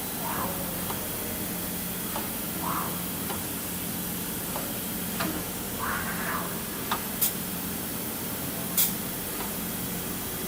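Kira CNC tap and drill center running a program: a steady hiss and hum, broken by several short whirs and a few sharp clicks, two of them loud, in the second half.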